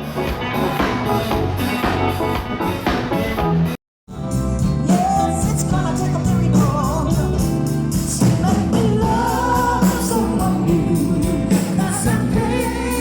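Music with singing, a voice holding and bending notes over a steady accompaniment. The sound drops out completely for a moment about four seconds in, then the music and singing carry on.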